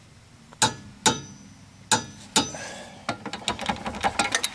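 Click-type torque wrench on the lower rear shock bolt: sharp metallic clicks with a ring, four of them spaced about half a second apart, then a quick run of lighter ratchet clicks. This is the bolt being torqued to its 92 ft-lb spec.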